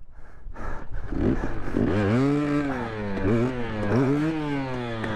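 KTM 300 XC TPI two-stroke single-cylinder dirt bike engine revving in repeated bursts, pitch rising and falling, while the bike is stuck in deep snow.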